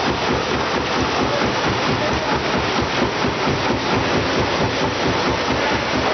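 Automatic rotary-jaw flow-wrapping machine running at production speed as it wraps dishwasher tablets: a steady, dense mechanical clatter with a rapid, even pulse.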